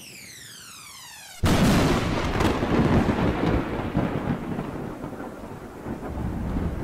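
A sweep of several falling tones, then about a second and a half in a sudden loud clap of thunder that rumbles on into a steady rain-like hiss.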